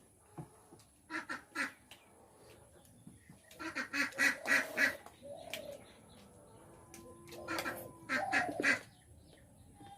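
Birds calling in three bursts of short repeated calls, about one, four and eight seconds in.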